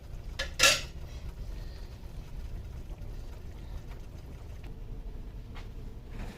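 Kitchen work noise: a loud, sharp double clack of cookware about half a second in, then a few faint knocks, over a steady low hum.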